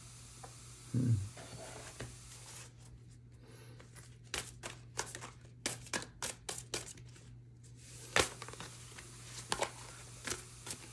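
Tarot cards being shuffled and handled: a run of about a dozen sharp card clicks and snaps over some three seconds, then a few spaced-out ones. A short low hum of a voice about a second in.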